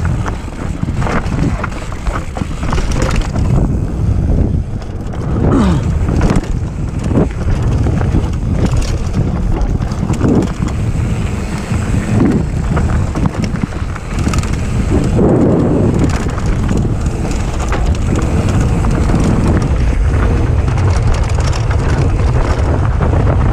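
Mountain bike descending a dirt and gravel trail at speed: wind buffeting the camera microphone, with tyre noise and frequent knocks and rattles from the bike over bumps. The ride evens out to a steadier rush of wind and tyres for the last several seconds.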